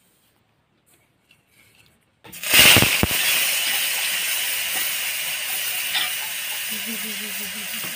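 Frying sizzle from a hot iron kadai: after near silence it starts suddenly about two seconds in, with a brief clatter, then goes on as a steady loud hiss, with one small knock later.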